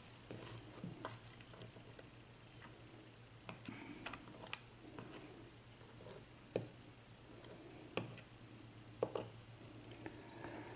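Faint, scattered light clicks of small lock pins and spools being moved about and set down on a work surface, a few clicks several seconds apart over a low steady hum.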